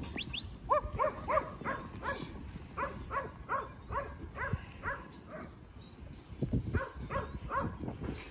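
A black and tan working sheepdog barks in a run of short, sharp barks, about two a second, with a brief pause a little past the middle. This is a yard dog using its bark to push sheep in the yards.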